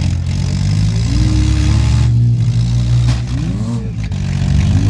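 Demolition derby cars' engines running loudly and revving, the pitch rising and falling as the drivers push against each other, with a swell of revs near the end.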